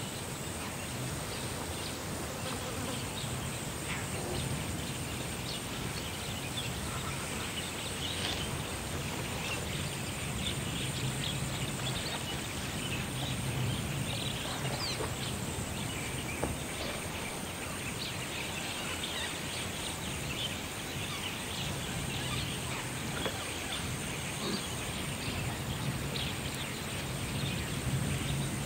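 Outdoor natural ambience: a steady, high-pitched insect drone with a fine pulse, scattered faint crackles and chirps, and a low rumble beneath.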